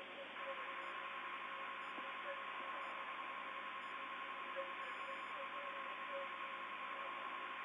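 Open air-to-ground radio channel hissing, with a steady tone that comes on about half a second in and holds.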